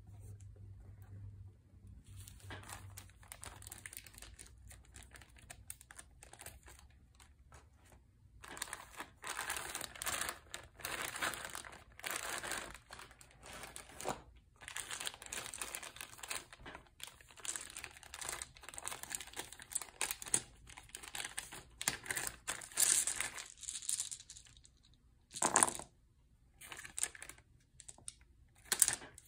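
Plastic bags of board-game components crinkling as they are handled and pulled from the box. Near the end, dice tipped from a bag clatter onto the cardboard rulebook in a few sharp clicks.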